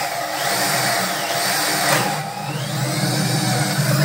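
Electric drill running steadily as it bores into the wooden headstock of a homemade electric arpeggione. The motor's whine sags and recovers in pitch several times as the bit bites into the wood.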